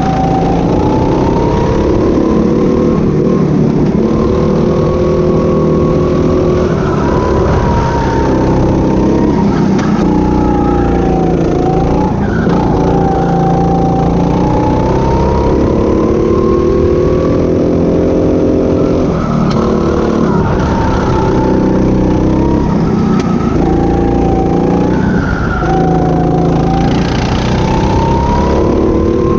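Go-kart engine heard from the driver's seat, its pitch climbing steadily as the kart accelerates, then dropping sharply as the driver lifts off for each corner, over and over.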